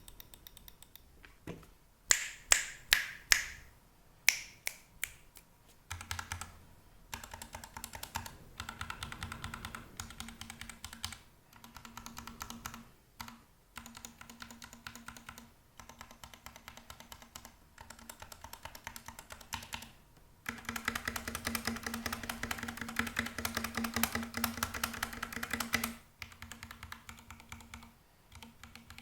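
Typing on an Epomaker GK68XS 65% hot-swap mechanical keyboard with Gateron Black linear switches. A handful of single, loud key presses about two seconds in, then bursts of fast typing with short pauses, busiest near the end.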